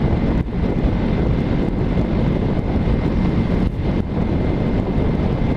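Yamaha parallel-twin motorcycle running steadily at road speed, its engine and the wind rushing over a helmet-mounted microphone blending into a continuous loud rumble.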